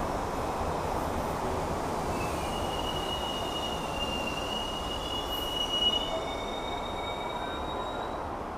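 Rapid-transit train cars rolling past a station platform with a steady rumble. A high wheel squeal starts about two seconds in and jumps higher in pitch about six seconds in.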